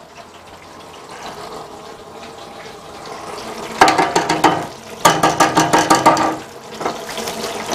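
Battered salmon balls frying in a deep fryer, the hot oil bubbling and sizzling, with spells of denser crackling about four seconds in and again about a second later.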